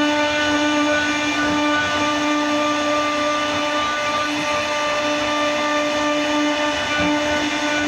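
CNC router spindle running with a steady whine over a constant rushing noise.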